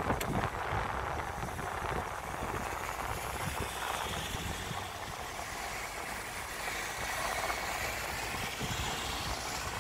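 Road traffic at a junction: cars and a van driving by, a steady wash of engine and tyre noise that swells and fades as vehicles pass.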